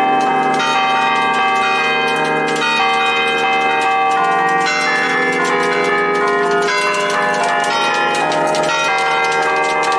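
Festive peal of a six-bell church ring in B-flat cast by De Poli in 1910, the bells struck in quick overlapping patterns by hand from a wooden lever keyboard. The ringing is continuous and dense, one strike following another with no pause.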